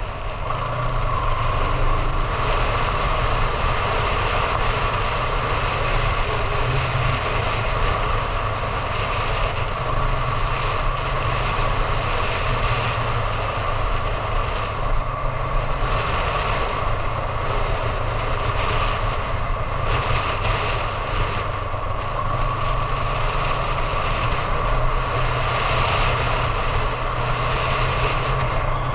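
Motorcycle engine running steadily at cruising speed, with wind noise over the camera microphone.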